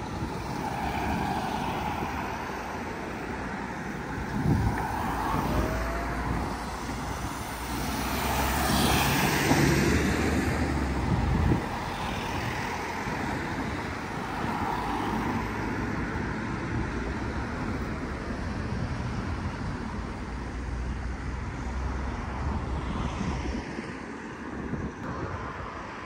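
Road traffic: a vehicle passes, swelling to its loudest about nine to ten seconds in and dropping away suddenly soon after, over a steady low traffic rumble.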